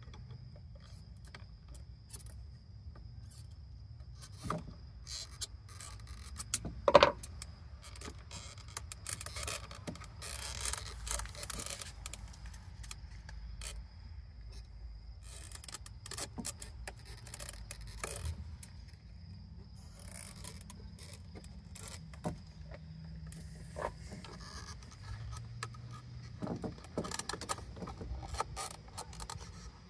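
Screwdriver prying and scraping at the plastic housing and retaining clips of a 2010 Honda Odyssey's fuel pump module. Small plastic clicks and scrapes come and go, with one sharp, loud click about seven seconds in.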